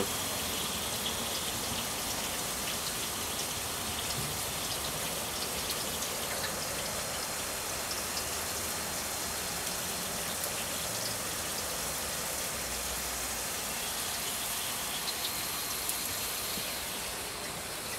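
Water boiling off the top of the Galden in a homemade vapor-phase soldering tank, a steady bubbling hiss with faint scattered pops. The water has to boil away before the Galden beneath it can heat up to its own boiling point.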